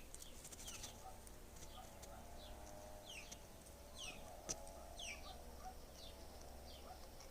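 Faint squeaky calls of young pigeons (squabs): short high notes, each falling in pitch, repeated about twice a second, over a lower wavering call.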